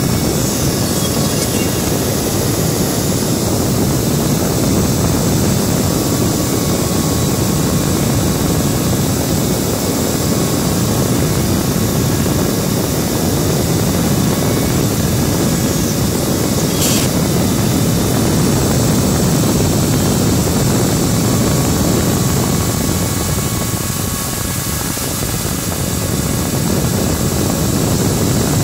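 Steady mechanical running noise, a dense low rumble with hiss above it, and one brief high sound about two-thirds of the way through.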